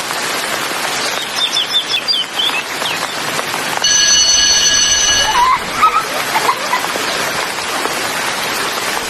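Steady rain with birds chirping in short bursts. About four seconds in, a steady high ringing tone sounds for under two seconds.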